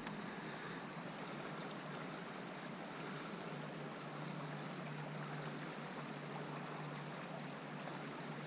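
Steady, fairly quiet outdoor background noise with a low steady hum and scattered faint high chirps.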